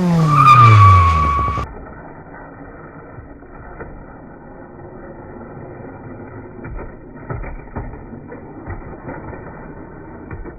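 Car sound effect: a loud engine note that drops steeply in pitch, with a high steady squeal, breaking off abruptly after about a second and a half. After it comes a dull, muffled rumble with scattered knocks.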